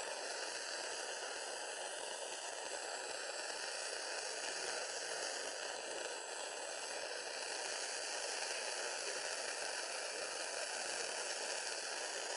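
Blowtorch flame hissing steadily while it heats a 9mm cartridge, before the round cooks off.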